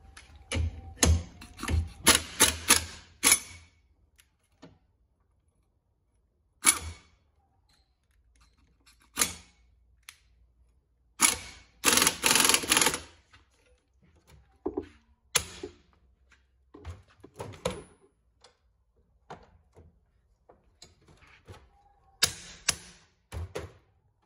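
Metal tools clicking and clanking in short bursts, with single knocks between them, as a wrench turns the screw of a C-clamp ball joint press to force a ball joint out of a control arm.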